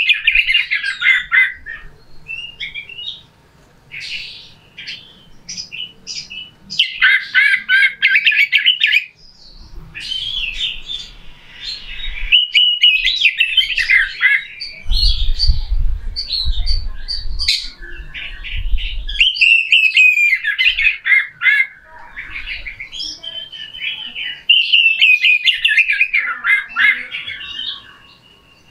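Oriental magpie-robin singing a harsh, loud song: rapid, rough chattering phrases of one to three seconds each, separated by short pauses. A low rumble runs under the song for a few seconds in the middle.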